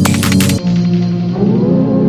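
Background electronic music. The drum beat drops out about half a second in, leaving sustained synth pad tones.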